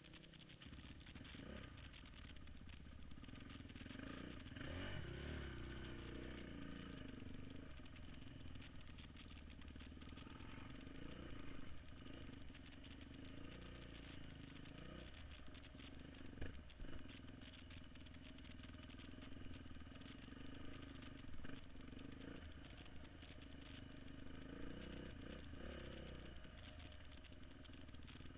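Off-road vehicle engine running at low trail speed, its pitch rising and falling with the throttle, with occasional knocks and clatter from the machine over rough ground.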